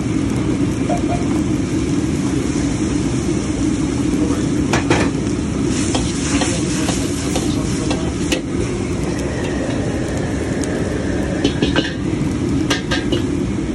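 A commercial wok burner runs steadily under a steel wok of hot, steaming liquid that sizzles and bubbles, the sizzle swelling for a second or two in the middle. A steel ladle knocks and scrapes against the wok several times, clustered near the middle and toward the end.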